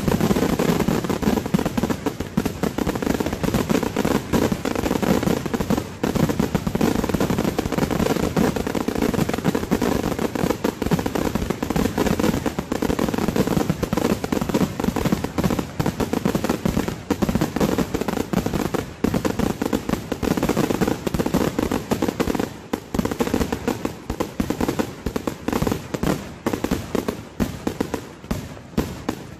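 Fireworks finale: a dense, continuous barrage of bangs and crackles, thinning out to separate bangs near the end.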